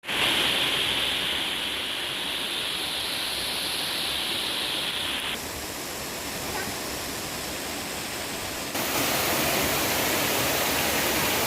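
Waterfall: a steady rush of falling water. The sound changes abruptly twice, about five and about nine seconds in.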